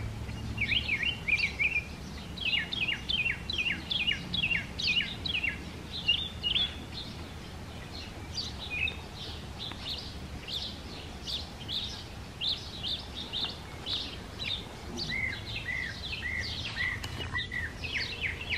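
Songbirds singing: quick runs of high, downward-sweeping chirps, phrase after phrase, with a lower chirping series joining about two-thirds of the way in.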